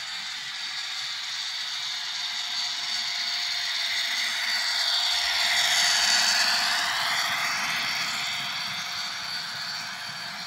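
Bachmann OO-gauge Class 57 model locomotive's DCC sound decoder playing a Class 57 diesel engine (EMD two-stroke) running under power. It sounds thin through the model's small speaker, with no bass. It grows louder as the locomotive passes close by about halfway through, then fades as the wagons follow.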